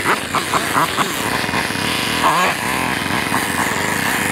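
Husqvarna TE300i two-stroke enduro engine revving in short throttle bursts, its pitch rising and falling over and over as the bike climbs slowly over rock.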